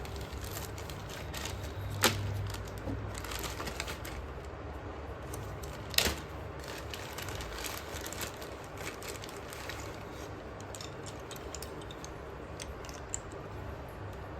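Slate pencils cracking: two sharp snaps about two and six seconds in, with smaller crunching crackles in between and after.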